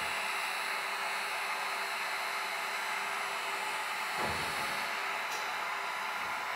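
Heat gun running steadily, blowing hot air over an 18650 battery to shrink a new plastic wrap onto it.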